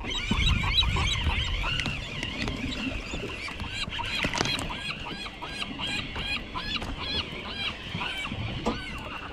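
A crowd of seabirds calling over one another: many short, arched calls repeated continuously, over a low rumble of wind and boat noise.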